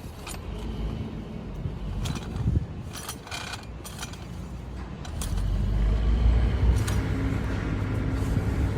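Metal clicks and clinks from jack stands being handled and worked, a few with a short metallic ring, over a low engine rumble that grows louder about five seconds in.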